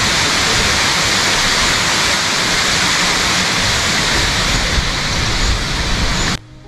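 Loud, steady rushing of a mountain stream's water, cutting off abruptly near the end.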